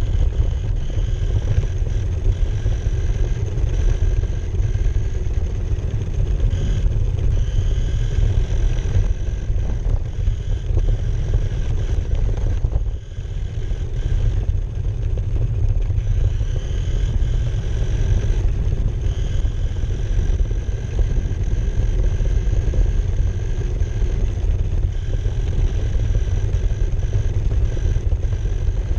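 Rumble of an RC car driving over asphalt, heard from a camera mounted on its body: tyre and road vibration carried through the chassis, with a faint steady whine from the car's motor. The rumble dips briefly about halfway through.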